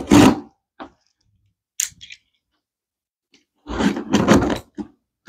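Corrugated cardboard shipping box being torn and pried open at its end flap: bursts of crackling and tearing, a short one at the start, a few faint ones, and a longer one near the end.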